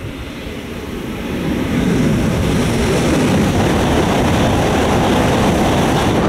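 E5 series Shinkansen passing at high speed. The rushing noise builds over the first two seconds, then holds loud and steady as the cars sweep by.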